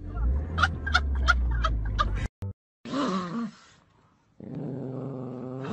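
A man laughing in short repeated bursts over a car's low rumble, then a dog's drawn-out growling vocalization, a short falling cry followed after a pause by a long steady one.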